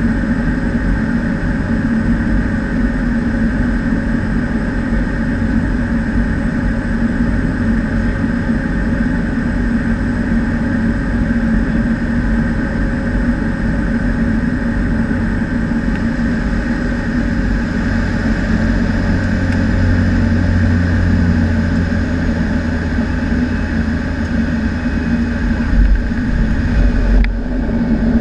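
Cessna 208B Caravan's Pratt & Whitney PT6A turboprop engine and propeller running steadily, heard inside the cockpit through the final approach and landing. A few louder bumps come near the end as the aircraft rolls onto the runway.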